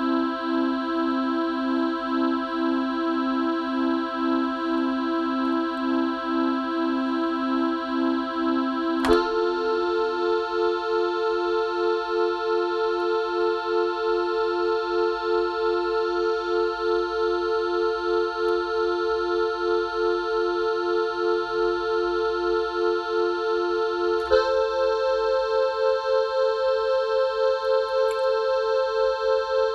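Music: sustained electronic keyboard chords that pulse steadily a few times a second. The chord changes abruptly twice, about nine seconds in and again later, each change marked by a click.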